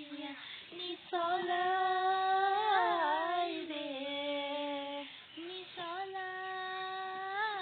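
A girl singing unaccompanied in long held notes: one long phrase starting about a second in, a short breath about five seconds in, then another phrase.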